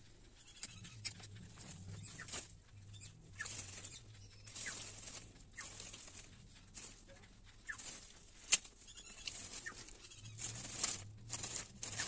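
Hand knife cutting and scraping a lemon-tree branch: a series of short, irregular rasping strokes, with one sharp chop about eight and a half seconds in.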